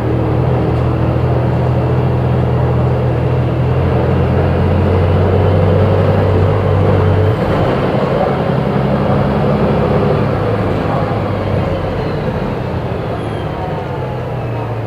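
Volvo B290R bus engine running with its Voith automatic gearbox. The low engine tone drops abruptly about seven seconds in, and the sound then eases off with falling tones near the end.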